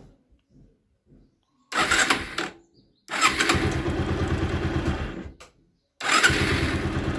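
Bajaj Pulsar 180's electric starter cranking the engine in three separate presses, a short one, a longer one of about two and a half seconds, and a third; each stops abruptly when the button is let go, so the starter is working normally this time rather than sticking on.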